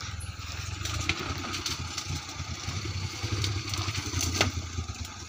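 Small mini truck's engine running at low revs as it crawls over deep ruts on a dirt road: a steady low rumble that swells and eases unevenly.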